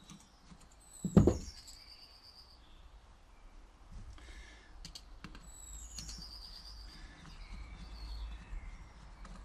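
A sharp knock about a second in, with a few light clicks later, as small carburettor parts are handled. A bird chirps twice in the background, each call a short run of high notes stepping down.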